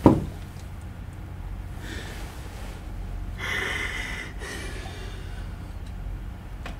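A person breathing out hard through the nose, stifling a laugh, about three and a half seconds in, with a fainter breath about two seconds in, over a low steady room hum.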